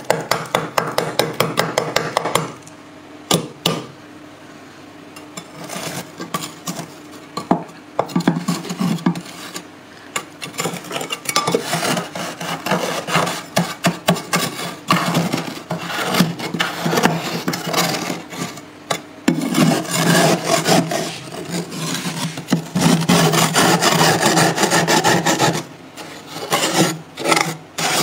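Metal spoon scraping thick frost off the inside wall of a freezer, rasping in fast strokes, in runs broken by short pauses.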